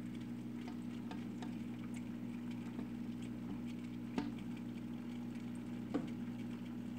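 A steady low hum with a few faint clicks and taps, the clearest about four seconds in and again near the end, as a cord and its small suction cup are handled against a glass reptile enclosure.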